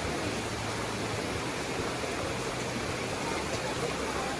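Shallow creek water running steadily over rocks, an even, unbroken rush of water.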